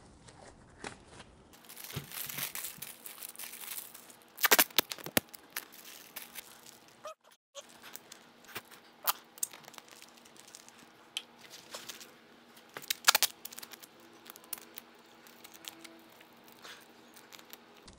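Duct tape being pulled, torn and pressed tightly around a bicycle frame tube: irregular crackling and tearing, with the sharpest bursts about four and a half seconds in and again near thirteen seconds.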